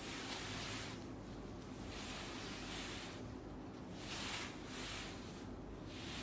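Crisp organza silk saree rustling as it is handled and spread out on a table. It comes as soft swells of hiss roughly once a second.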